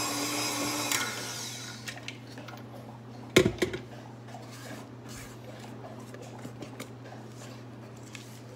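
KitchenAid stand mixer running as it beats cake batter, switched off about a second in. Then a spatula knocks once, loudly, against the metal mixing bowl, followed by a few light clicks as the batter is scraped down.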